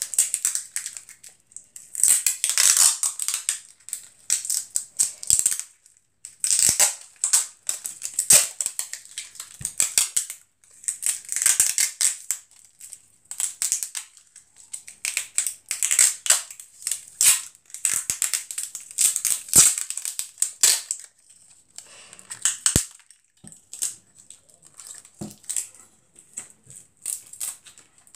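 Clear adhesive tape being pulled off its roll in a run of short rasping pulls, with paper rustling as it is wrapped and taped. The pulls die down over the last few seconds.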